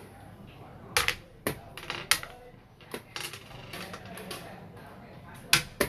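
Xiangqi pieces clacking: a few sharp clicks of hard pieces knocked together in a player's hand and set down on the board, the loudest about five and a half seconds in.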